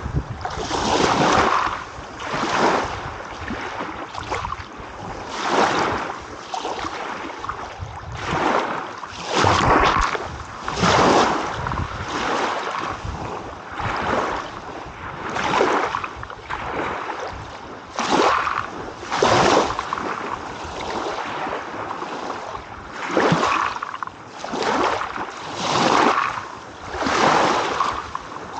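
Small ocean waves breaking and washing on a shore, swelling and fading in uneven surges about every one to two seconds.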